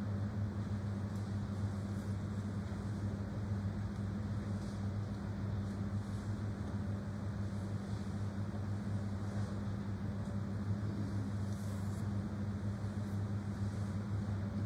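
Steady low electrical hum over a constant hiss, the background tone of a sound system.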